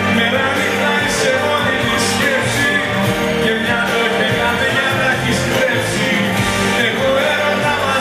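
Live band playing a Greek laïkó song with a male singer singing over it.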